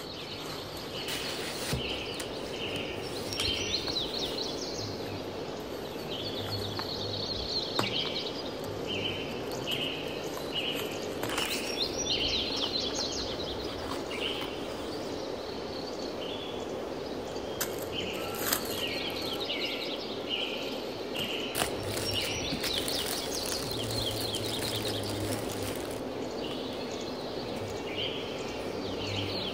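Small birds chirping repeatedly in the background, short calls coming a few times a second, over the rustle and crinkle of cardboard and paper packaging being handled, with a few small clicks and taps.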